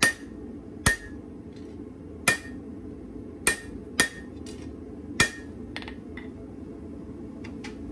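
Dog's head hammer striking hot leaf-spring steel on an anvil: six heavy blows at an uneven pace, each with a short metallic ring from the anvil, then a few light taps near the end. A steady low noise runs underneath.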